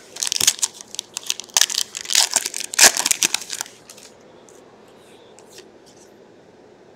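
Foil trading-card pack being torn open, the wrapper crinkling loudly for about three and a half seconds. Then only a few faint ticks as the cards are handled.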